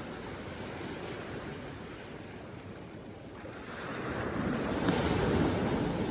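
Ocean surf washing on a beach, with one wave swelling louder a little past halfway, and wind buffeting the microphone.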